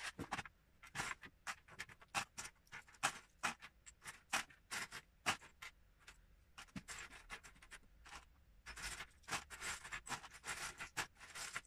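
Loose Lego bricks and minifigures clicking and clattering as a hand rummages through them in a clear plastic tub and on the table, an irregular string of small sharp clicks.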